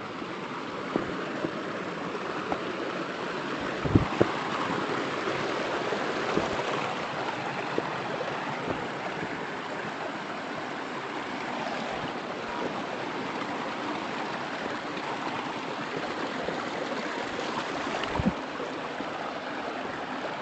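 Steady rush of flowing water, with a few short low thumps, the loudest about four seconds in and another near the end.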